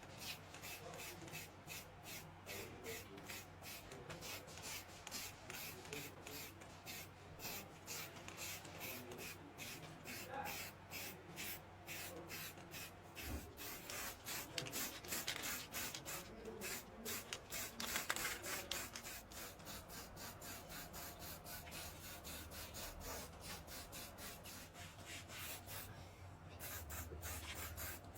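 Rapid, regular rubbing strokes on a surface, about four a second, a little louder around the middle.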